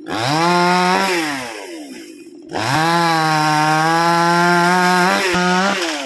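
Two-stroke chainsaw revved twice. A short burst rises in pitch and dies away, then about half a second later a longer run holds at steady high speed before dropping off near the end.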